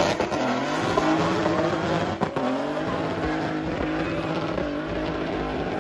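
Car engine at full throttle on a drag run, its pitch climbing through the revs and dropping back at each gear change, fading slowly as the car pulls away down the strip.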